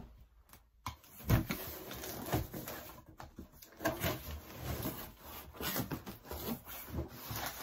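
Large cardboard box being handled and opened: irregular scraping and rustling of cardboard with scattered dull knocks.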